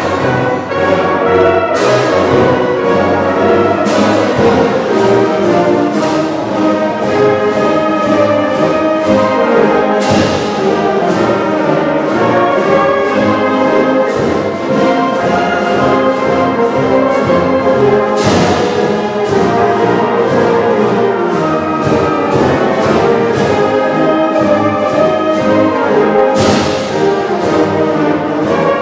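High school concert band playing: brass and woodwinds together, with sharp percussion strikes several times, the strongest about 10 and 18 seconds in.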